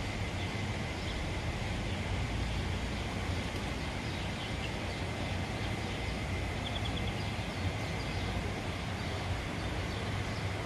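Steady outdoor background noise with a low rumble and hiss, and a quick run of four faint high bird chirps about seven seconds in.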